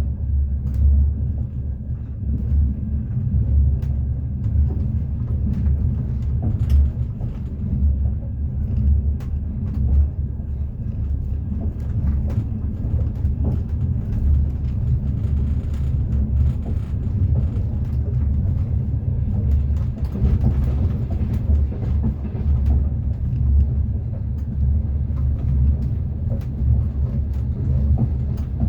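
Train running on the rails, heard from inside a carriage: a steady low rumble that swells and eases, with the light knock of the wheels over the track.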